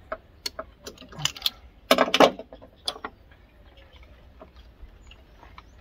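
Scattered clicks and knocks of hands working plastic hose fittings and connectors in a car's engine bay. A louder cluster of rattling knocks comes about two seconds in.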